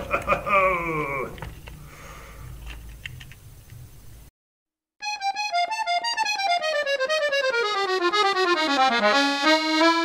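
Accordion music begins about halfway through, after a brief drop to silence, its held reedy notes stepping down in a falling melody and then climbing near the end. In the first second a high, sing-song voice trails off.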